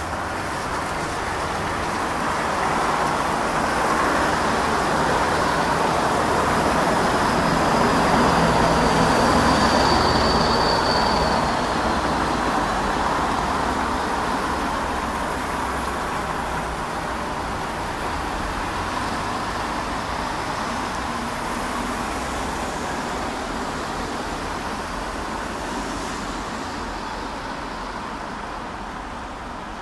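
Distant vehicle noise: a rushing sound that slowly swells to a peak about nine seconds in and then gradually fades. A faint thin high whine is heard around the peak and drops slightly in pitch as it ends.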